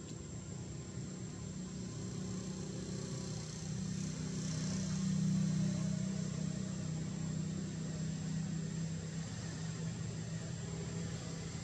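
A motor vehicle's engine hum that swells about four to six seconds in and then eases off, over a thin, steady, high-pitched whine.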